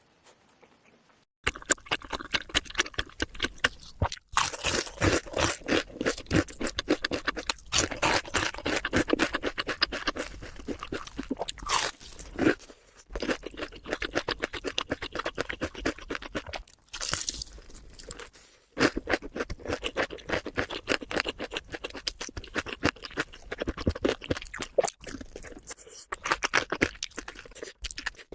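Close-miked mukbang eating: rapid crunching and chewing of food, starting after about a second and a half of near silence, with a few brief breaks.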